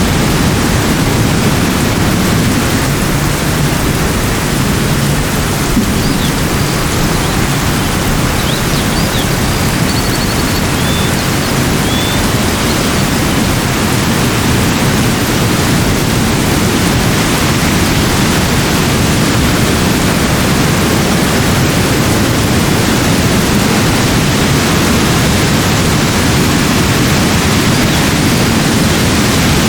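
Steady, even rushing of water, with no swells or breaks.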